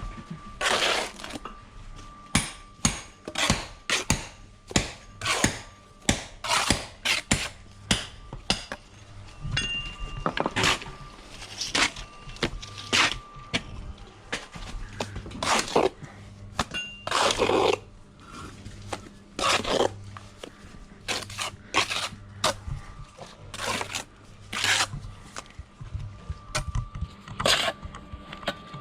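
Steel bricklaying trowel working mortar on concrete blocks: repeated sharp taps, knocks and scrapes, one or two a second, over a faint steady hum.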